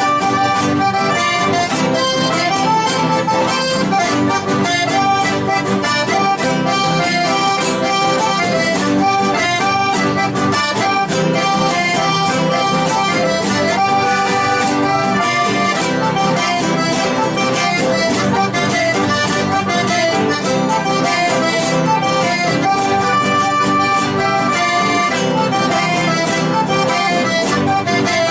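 Live chamamé played on accordions with guitar accompaniment, a brisk steady rhythm.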